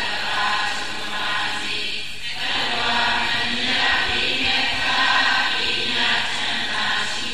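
A group of voices chanting in long, held phrases, with short breaks between the phrases.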